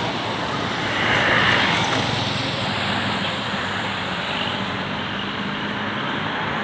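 Road traffic noise: a passing vehicle's engine hum and tyre rush, swelling between one and two seconds in, with no horn sounding.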